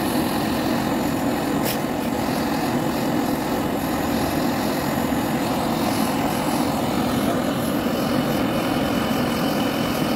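Handheld gas torch on a canister burning with a steady, even rushing noise while heating a copper pipe tee joint for brazing.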